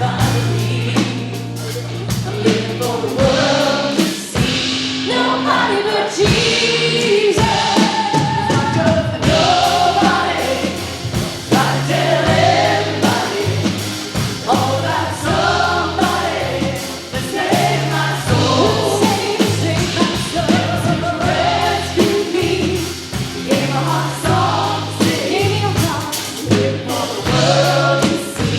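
Live contemporary worship music: a band with bass and drums playing a steady beat under a group of voices singing a praise song.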